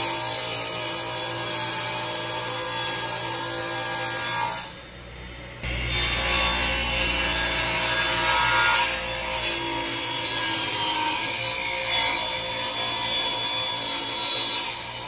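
Table saw cutting a hardwood board as it is fed through with a push block: a steady loud sawing noise over the hum of the saw's motor, with a short dip in level about five seconds in.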